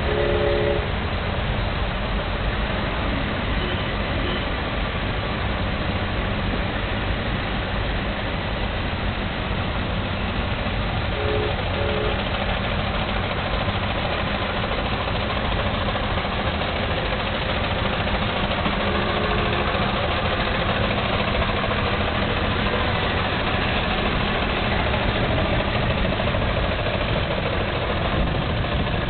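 Several vintage cars and trucks, Ford Model T-era machines among them, with their old four-cylinder engines running at low speed as they pass one after another in a slow procession. A few short toots come through: once at the start, a double toot about eleven seconds in, and once more a few seconds later.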